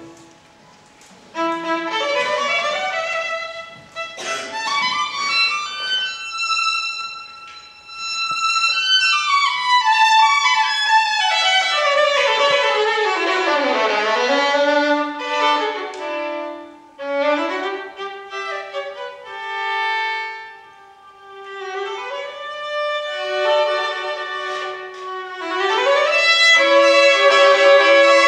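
Solo violin playing alone, without the orchestra, after about a second's pause. It plays fast runs sweeping up and down, with a few held high notes, a long descending run to the low G string about halfway through, and a louder stretch near the end.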